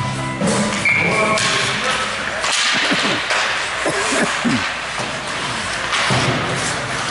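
Ice hockey play on a rink: skate blades scraping the ice, with sticks and puck knocking. Rink music fades out during the first second or so.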